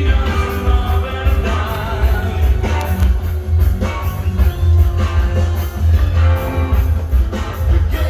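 Rock music with singing, a heavy bass line and a steady drum beat.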